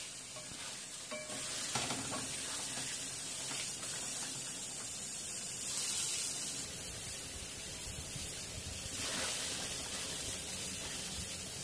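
Chicken pieces in a thick masala sizzling in a pan while a wooden spatula stirs and scrapes through them. The masala is being fried down (bhuna) with a splash of water.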